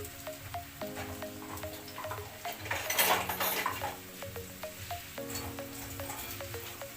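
Mushrooms sizzling in olive oil in a hot pan, with a louder flare of sizzling and stirring about three seconds in.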